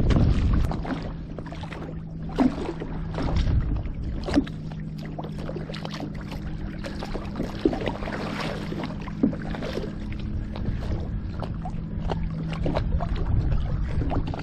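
Stand-up paddleboard being paddled: water splashing and lapping at the board, with a few sharp knocks and a steady low hum underneath.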